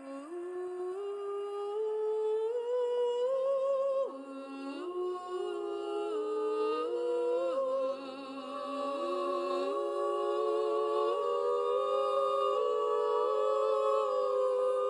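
Music: layered wordless vocal harmonies, several sustained voices moving together in slow steps, with no lyrics.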